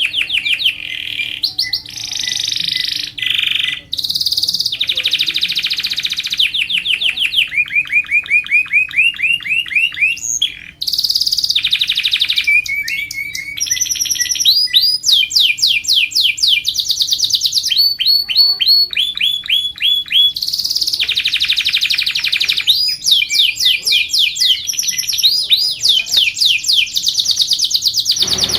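Domestic canary singing a long, continuous song of rapid rolls and trills. Each phrase is a fast run of repeated sweeping notes, and a new phrase starts every second or two.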